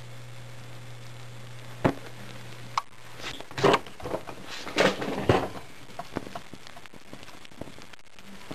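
Malibu 12-volt landscape lighting transformer humming under a dead short through a pencil's graphite lead, with a sharp snap about two seconds in and another just before three seconds, when the hum cuts off. Then a run of loud crackles and pops as the pencil burns in flames, thinning to scattered small crackles.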